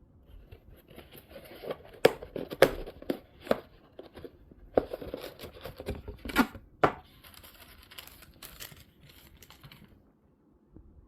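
Packaging being handled: irregular crinkling and tearing with several sharp knocks, stopping about a second before the end.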